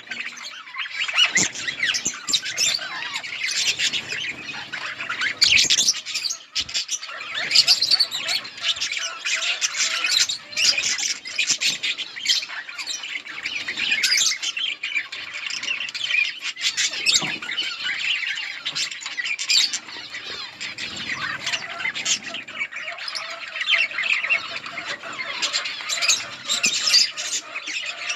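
A flock of budgerigars chattering: many overlapping chirps, warbles and squawks at once, with no break.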